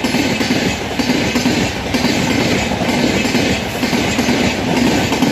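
Indian Railways LHB passenger coaches rolling past close by: a loud, steady rumble of steel wheels on rail with a rhythmic clickety-clack from the wheels and bogies.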